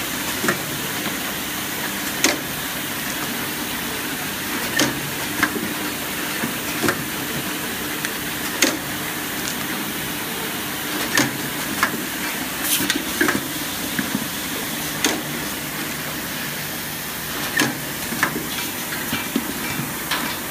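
Linear cap lining machine running: a steady hiss and low hum, with sharp clicks every second or two at uneven spacing as plastic caps move through the track.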